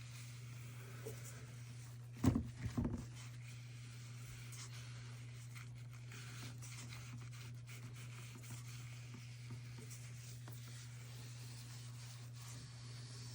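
Faint rubbing and scratching of a cloth working oil into walnut, over a steady low hum. A couple of low thumps come about two seconds in.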